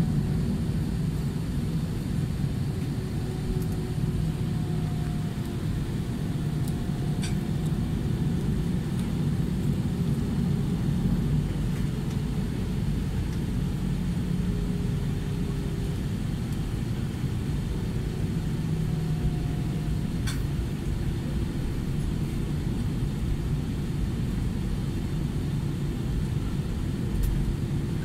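Airliner cabin noise inside an Airbus A320-200 taxiing: a steady low rumble from the engines at taxi power and the rolling airframe, with faint hum tones that drift a little in pitch.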